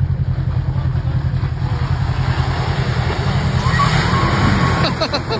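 An off-road vehicle's engine running with a steady low rumble.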